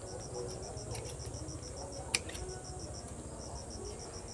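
An insect chirping steadily in rapid, even high-pitched pulses, with a single sharp snip of pruning shears cutting a dragon fruit's stem about two seconds in.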